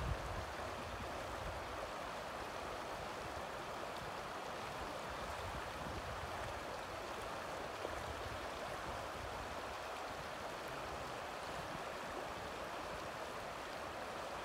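Steady rushing of a shallow, rocky river, its water running over stones in a riffle.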